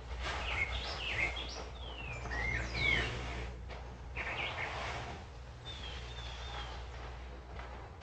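Wild birds outdoors chirping and singing in short rising and falling calls, in a cluster during the first few seconds and a few more near the middle, over a steady low background hum.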